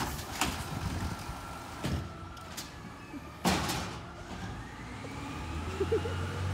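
Automated side-loader garbage truck emptying a bin: a few sharp clattering knocks in the first half, then the engine revs and a whine rises in pitch over the next couple of seconds.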